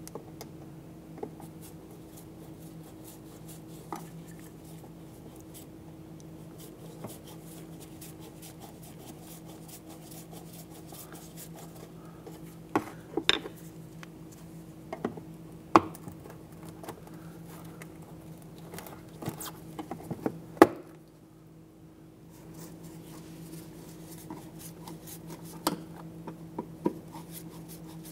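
Plastic fender-liner push-pin retainers being worked out with a Phillips screwdriver and a trim tool: scattered small clicks and scrapes of metal tool tips on plastic, the sharpest snap about twenty seconds in. A steady low hum runs underneath.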